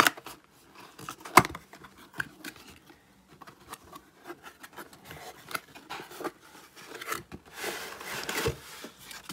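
Cardboard retail packaging being opened and handled: sharp clicks and knocks as the box flap and inner cardboard are worked open, the loudest at the very start and about a second and a half in. Near the end comes a longer scraping rub as the inner box slides out of its cardboard sleeve.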